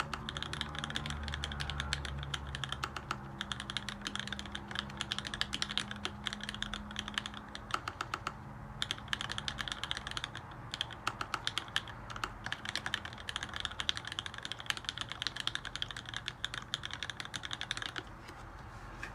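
Typing on an LZ-ergo mechanical keyboard with lubed Wyse black switches, 55 g springs and an aluminium plate: fast runs of keystrokes with a few brief pauses, stopping about a second before the end.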